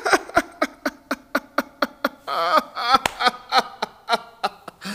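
A man laughing hard: a long run of quick, rhythmic ha-ha pulses, about four or five a second, with one longer drawn-out laugh a little past two seconds in.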